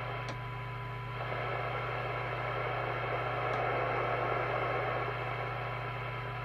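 Moonraker Minor II CB radio's loudspeaker putting out a weak test signal: a steady tone buried in receiver hiss, the receiver working near its 20 dB SINAD sensitivity of 0.3 microvolts. The hiss swells for a few seconds in the middle, with a low hum underneath.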